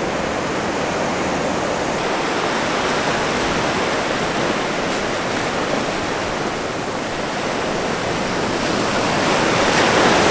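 Ocean surf rushing up the beach, a steady wash of breaking waves that swells louder near the end.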